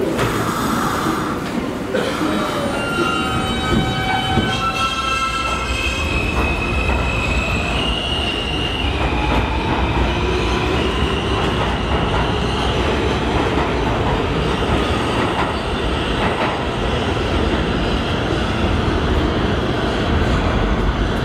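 Kawasaki R160B subway train pulling out of the station. Its motors whine in pitches that step upward over the first ten seconds or so as it picks up speed, over a low rumble of wheels on the rails as the cars go by.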